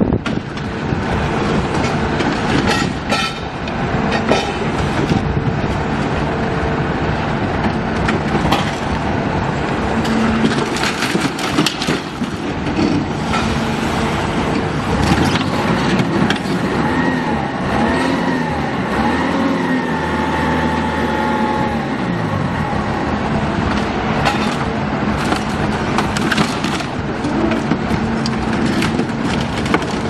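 Heavy machinery working: an engine runs steadily with a dense mechanical clatter and scattered knocks, and its tone wavers up and down for a few seconds around the middle.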